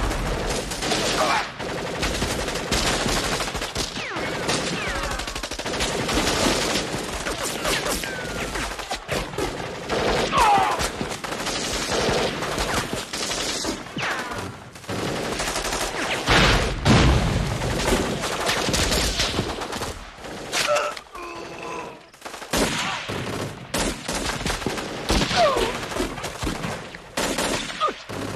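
Heavy, near-continuous automatic-weapon gunfire: a dense fusillade of rapid shots with barely a pause, thinning briefly about three-quarters of the way through before picking up again.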